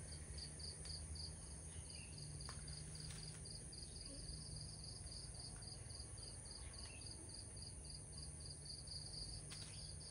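Faint insects chirping in a quick even pulse, about four chirps a second, over a steady high-pitched insect drone and a low hum.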